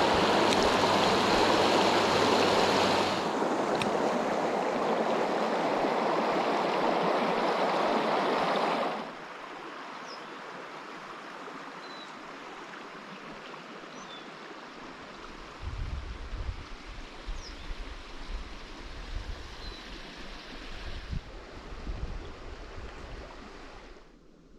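Creek water flowing, loud for the first nine seconds, then dropping suddenly to a quieter stretch of running water. A few faint short chirps sound over it, and from about two-thirds of the way in there are low irregular rumbles and bumps.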